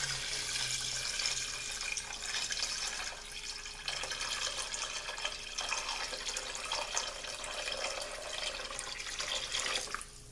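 Water poured in a steady stream into a pot of browned oxtails and broth, splashing into the liquid; the pour stops near the end.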